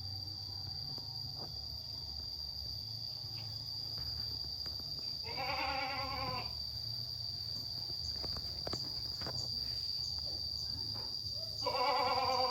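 Two-week-old kitten mewing for its mother: two drawn-out cries, one about five seconds in and another starting near the end.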